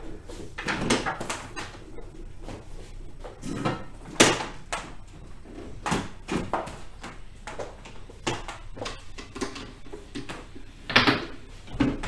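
Irregular knocks and clatters of a Thermocook Pro M countertop multicooker being unplugged and moved on a kitchen bench, with the loudest knocks about four seconds in and near the end.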